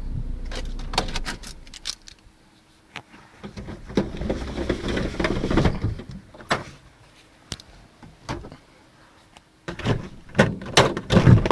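A car's engine running and shutting off about two seconds in, then scattered clicks and knocks of getting out of the car: door, keys and handling noises.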